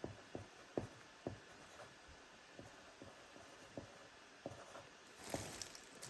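Faint, scattered light clicks and taps in a small room, with a short rush of hissy noise near the end.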